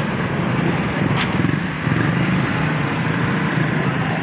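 Motorcycle engine running steadily at road speed, a low hum over a steady rush of wind and road noise, with a short click about a second in.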